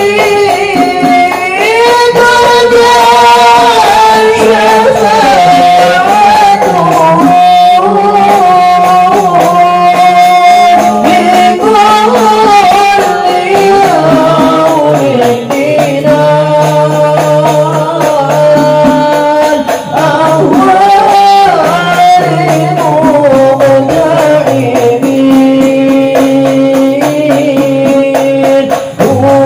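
Men's voices chanting Arabic devotional salawat into a microphone, one long melodic chant with notes held and sliding between pitches.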